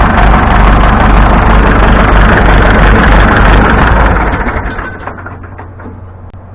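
Massey Ferguson 165 tractor engine running with a knock that the owner takes for a connecting rod knocking. About four seconds in it is shut off and runs down.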